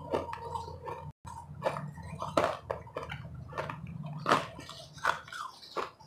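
Close-miked chewing of crushed refrozen ice, with irregular sharp crunches as the ice breaks between the teeth. There is a brief silent dropout about a second in.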